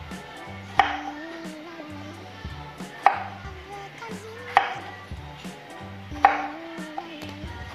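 Kitchen knife chopping through a peeled krai cucumber onto a wooden cutting board: four sharp chops, about one every one and a half to two seconds, over background music.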